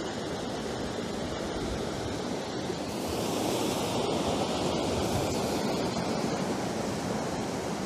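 Mountain stream rushing over rocks in a series of white-water cascades, a steady noise of fast water that grows a little louder and brighter about three seconds in.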